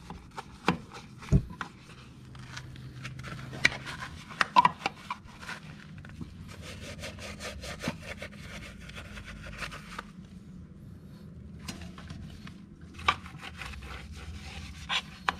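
A stiff brush scrubbing the soapy, wet cast-metal CVT cover of a Yamaha NMAX scooter: quick back-and-forth scrubbing strokes in runs, with a few sharp knocks of the brush against the casing.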